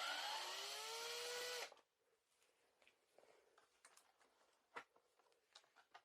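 A cordless drill/driver whirs for under two seconds, its pitch rising as it spins up, then cuts off suddenly as a screw is driven out of the vacuum's base. Faint clicks and small-part handling follow.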